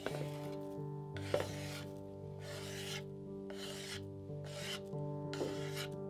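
A slotted spatula scraping chopped parsley across a bamboo cutting board in about six quick strokes, roughly one a second, over soft background music.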